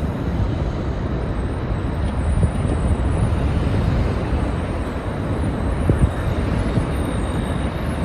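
Wildfire and strong wind near a fire tornado: a loud, steady rush of noise, heaviest in the low end, with a few brief sharp cracks.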